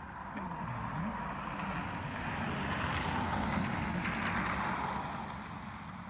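A passing vehicle's tyre and road noise, swelling to a peak about three to four seconds in and then fading.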